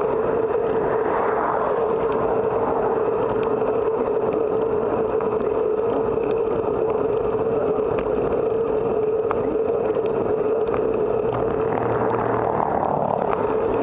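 Steady wind and tyre rush from a bicycle riding along a paved road, with a steady whine underneath. The noise swells briefly about a second in and again near the end as cars go by.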